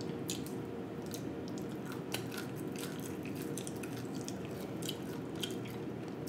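Short, scattered crackles and sticky clicks of fingers tearing apart a whole fried snapper, with biting and chewing, over a faint steady hum.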